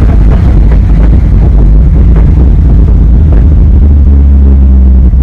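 2004 Ford Mustang's exhaust running loud under driving, with a few sharp crackles and pops in the first few seconds, settling into a steady drone about four seconds in.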